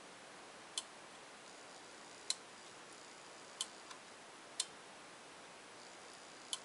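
The magnetic snap switch of a LUX CH-400 thermostat clicking over and back as the temperature lever is moved: about five sharp clicks, irregularly spaced a second or two apart.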